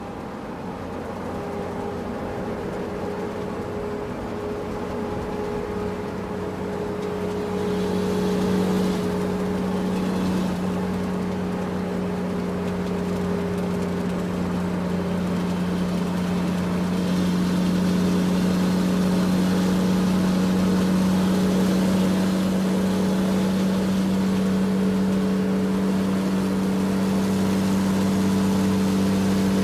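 Excavator's diesel engine running steadily under load, getting louder in steps about eight seconds in and again past halfway.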